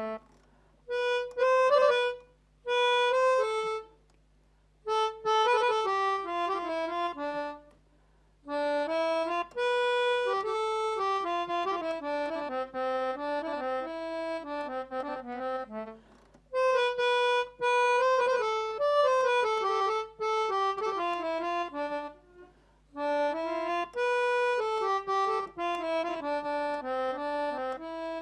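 Melodica, a mouth-blown keyboard played through a tube, playing a single-line melody note by note. The tune comes in phrases broken by short pauses about a second in, around four and eight seconds, around sixteen and around twenty-two seconds.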